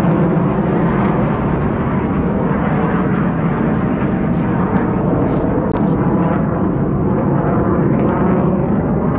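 Steady rumbling noise with a few faint ticks about halfway through.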